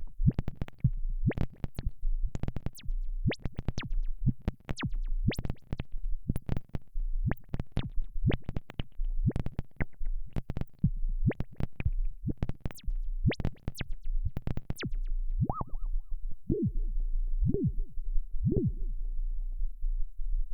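Modular synthesizer patch on Arturia's Modular V3 software synth: a fast run of sharp zaps, each falling quickly in pitch, about two or three a second over a pulsing low bass. About three-quarters of the way through, the zaps stop and a few lower pitched notes sound about once a second over the bass.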